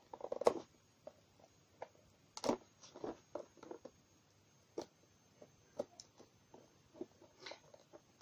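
Fingers picking and scratching at the sealing sticker of a small cardboard box and handling the box: a scatter of small clicks, taps and scrapes, with a short hum near the start.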